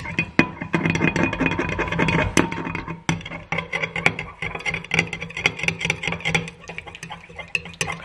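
Metal stirring stick clinking and scraping rapidly against the inside of a glass measuring cup while black colour is mixed into liquid soft-plastic bait mix.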